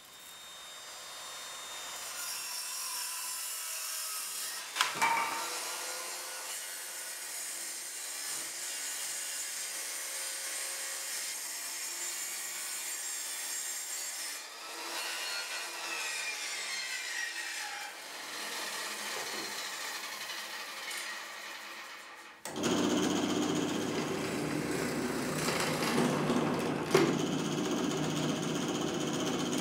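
Power tools working wood: a steady, high-pitched cutting noise, then about three quarters of the way through a louder, deeper-running tool starts abruptly, with a few sharp knocks.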